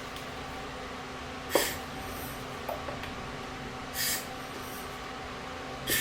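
Three short puffs of air from a hand air blower, spaced about two seconds apart, blowing dust off lens glass. A faint steady hum runs underneath.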